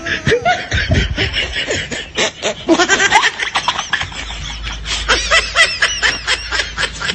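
Loud, continuous laughter: a rapid run of snickering and giggling.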